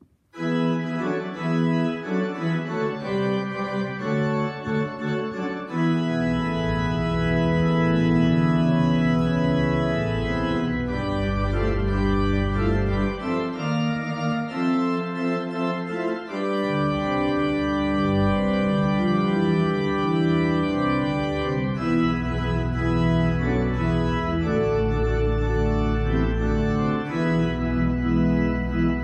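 Church organ playing a slow prelude of held chords, starting about half a second in; deep pedal bass notes join about six seconds in and drop out for a few seconds in the middle.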